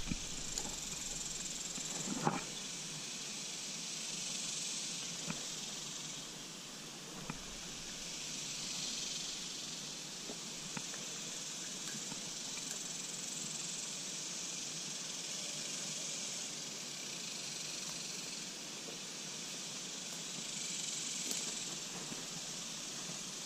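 Steady high-pitched hiss of an insect chorus that swells and eases every few seconds, with a sharp knock about two seconds in and a few faint clicks.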